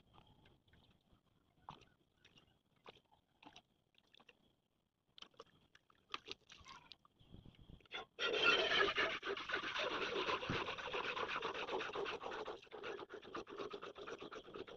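Cow being milked by hand into a steel pail: a fast, continuous run of hissing squirts of milk that starts about halfway through. Before that, only faint scattered clicks and rustles.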